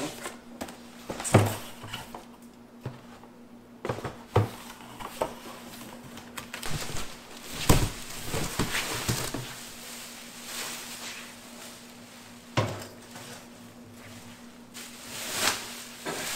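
Cardboard box flaps and a plastic bag rustling and crinkling as a boxed generator is unpacked, with scattered knocks and thumps as the box is tipped over and the generator is pulled out of it.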